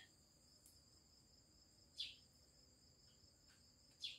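Crickets chirring steadily and faintly, high-pitched, in an otherwise near-silent room. Two brief faint sounds come about two seconds in and again near the end.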